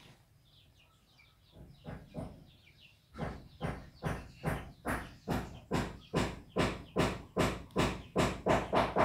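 Cat licking its front paw close to the microphone: a regular run of rasping tongue strokes, about two a second, starting about three seconds in and growing louder and slightly quicker. Faint bird chirps before it.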